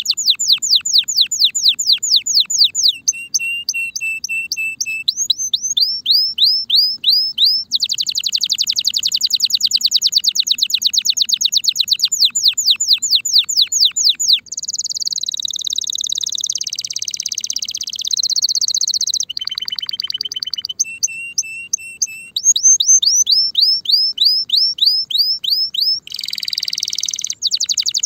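Spanish Timbrado canary singing: rapid trills of repeated falling notes, broken by short held lower notes and a rolling, buzzy passage in the middle.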